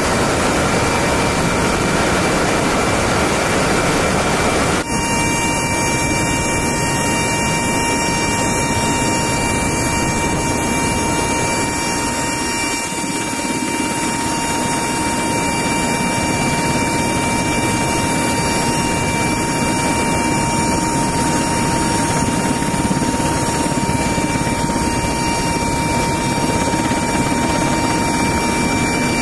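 Loud, steady in-flight noise aboard an MC-130J Commando II: rushing wind and the drone of its four turboprop engines through an open door. About five seconds in, the rush cuts to a steadier engine drone with a high, even whine.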